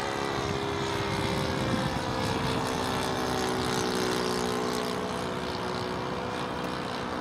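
Engine and propeller of a radio-controlled scale Ju 87D Stuka model running in flight overhead: a steady drone whose pitch shifts slightly as it flies.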